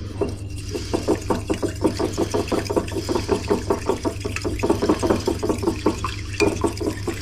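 A metal fork beating egg and milk in a bowl, rapid even strokes several times a second that scrape and tap the bowl, over a steady low hum.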